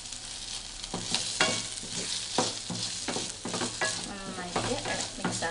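Onions, green chilli and curry leaves sizzling in coconut oil in a stainless steel pan, with a wooden spatula scraping the pan in several separate stirring strokes.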